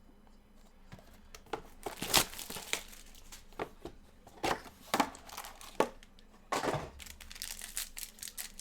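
Plastic wrapping on a trading-card box crinkling and tearing in irregular sharp rips as the box is opened, with a longer ripping rasp near the end.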